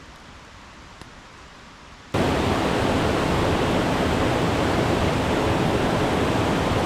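Rushing water of a river and waterfall: after a quiet start, a loud, steady rush of water sets in suddenly about two seconds in and holds without change.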